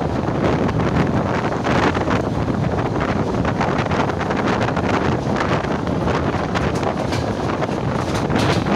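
Wind rushing and buffeting the microphone held out of the window of a moving electric commuter train, in irregular gusts, over the steady running noise of the train on the rails.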